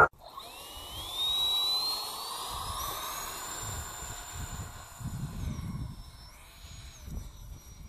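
E-flite Habu SS's 70 mm electric ducted fan on a 6S battery spooling up at takeoff: a high whine that rises in pitch for about three seconds, then holds high with small dips as the jet accelerates away down the runway. Wind buffets the microphone underneath.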